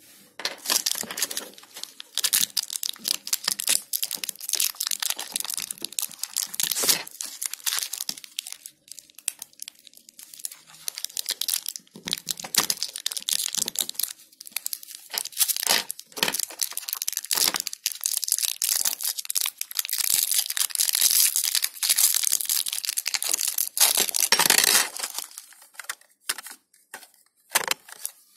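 Clear plastic packaging crinkling and tearing as it is pulled open by hand, in irregular spurts with short pauses.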